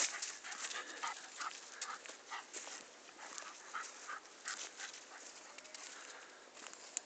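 A cocker spaniel panting, mixed with irregular rustling and crunching of steps through dry leaf litter.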